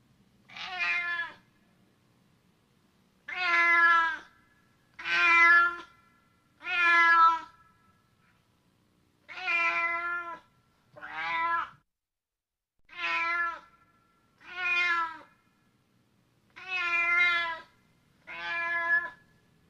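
Domestic cat meowing repeatedly: about ten separate meows, each under a second long, coming roughly every two seconds.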